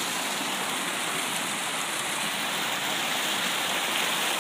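Water rushing steadily over a dam spillway just cleared of a beaver plug of sticks and mud, the backed-up lake pouring through.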